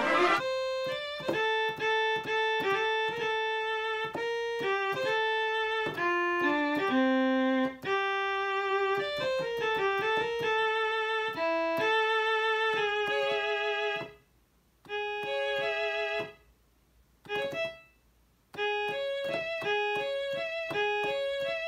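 Electronic keyboard played by hand: a single-line melody of held notes with a slight vibrato, broken by a few short pauses a little past the middle.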